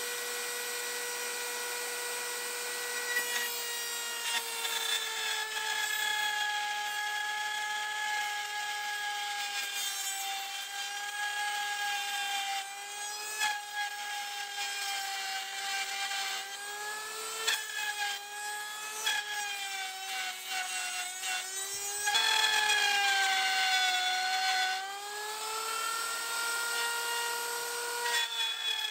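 Wood router running in a router table, a steady high whine at first, then dipping and wavering in pitch after about three seconds as an ash strip is fed through the bit to cut the gunwale's overlap joint. The motor is most heavily loaded and loudest about two-thirds of the way through.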